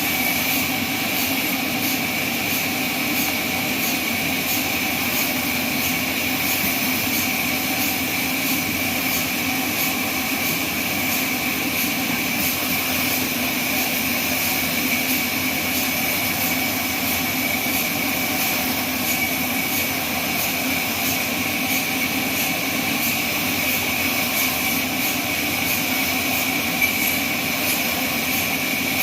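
Band sawmill running with a steady high whine and a lower steady hum, with a faint regular pulse about twice a second.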